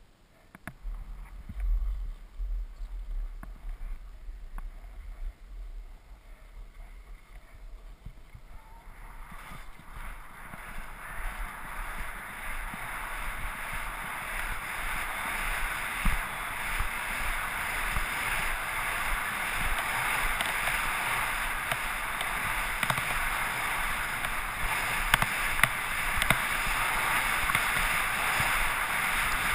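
Skis sliding and carving on groomed packed snow: a steady scraping hiss with small clicks, growing louder from about nine seconds in. Low wind buffeting on the camera microphone underneath.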